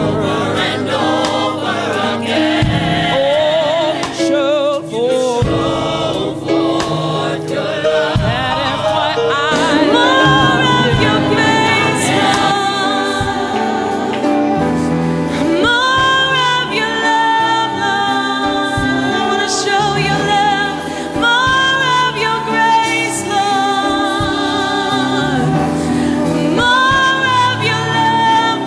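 Gospel choir singing with a band, long held notes that slide up into pitch at the start of each phrase.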